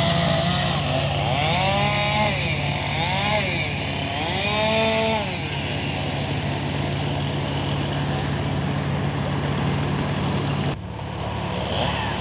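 A small engine running steadily, revved up and back down about four times in the first five seconds. The sound changes abruptly about eleven seconds in.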